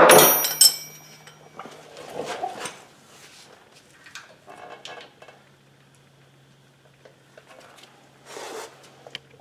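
Metal handling of a steel pin and bolt being refitted on a tractor frame. It opens with a sharp ringing clank of metal on metal, then quieter clinks and rattles, and ends with a brief rustle and a few light clicks as a wrench goes on the bolt.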